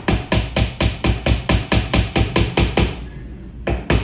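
Hammer rapidly tapping small panel nails through a thin fiberboard bookcase backing into the wooden frame, about five light strikes a second, with a short pause about three seconds in before the tapping resumes.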